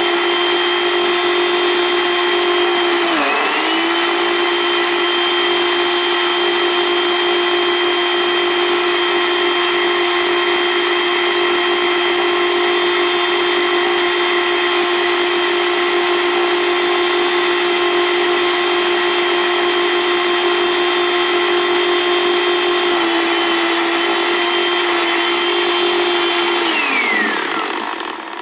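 Countertop blender motor running at a steady whine while churning whipping cream into butter. Its pitch dips briefly about three seconds in. Near the end it is switched off and winds down with a falling pitch.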